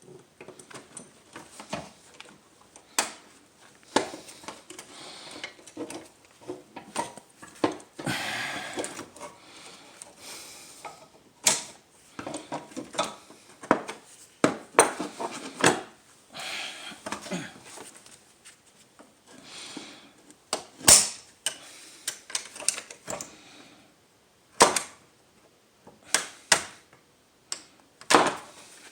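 Irregular clicks, taps and scraping of a hand tool working at a car hood latch's plastic cable clips, squeezing and prying them to push them out, with a longer stretch of scraping about eight seconds in.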